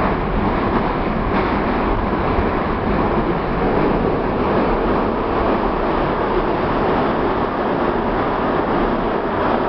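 Steady running noise of a moving metro train, heard from inside the carriage: wheels on rails and the car body, with no distinct knocks or changes.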